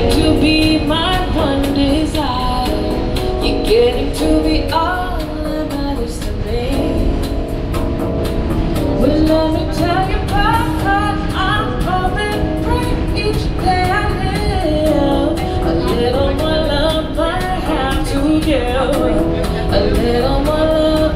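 A woman singing a melody into a handheld microphone inside a subway car, with a steady low rumble underneath.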